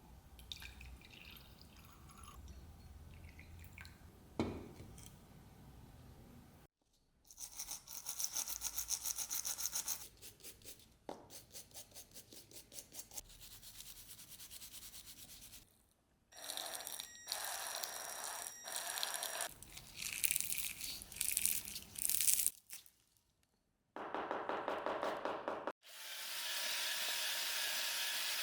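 Hand brush scrubbing in quick back-and-forth strokes, in several short bursts separated by brief pauses.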